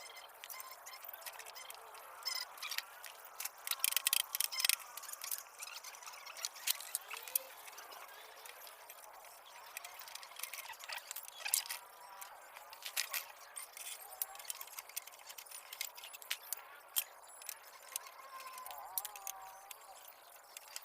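Scattered sharp metal clicks and clinks from parts and tools being handled on an old manual ice shaver under restoration, coming in clusters with quieter stretches between. The sound is thin, with almost no low end.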